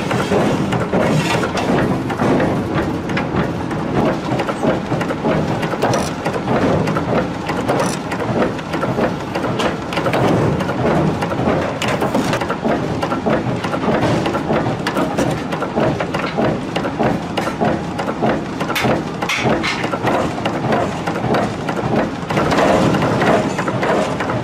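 Forge-shop din: heavy forging machinery rumbling under a dense, irregular clatter of metal knocks while red-hot steel blanks are worked, with no steady beat.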